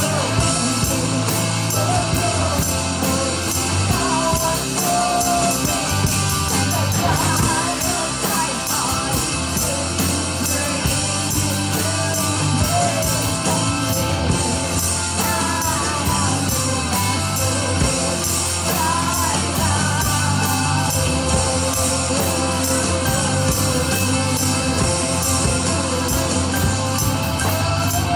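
Live worship band: female voices singing a contemporary worship song into microphones over a drum kit and band accompaniment.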